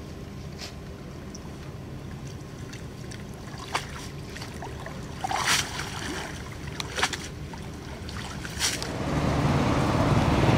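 Shallow muddy water sloshing and splashing as a cast net is handled and gathered up, with a few short sharp splashes and a steady low wind rumble on the microphone. Near the end a louder steady noise swells in.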